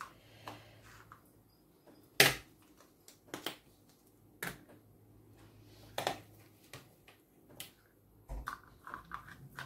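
Scattered light clicks and knocks of small plastic portion pots and a spoon being handled as mush is spooned into them and the pots are stacked, with one sharper knock about two seconds in.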